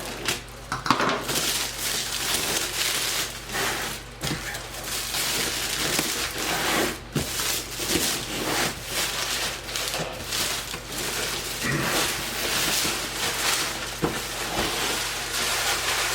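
A shipping box being opened and unpacked by hand: continuous rustling and crinkling of cardboard and packing material, with many small crackles and clicks.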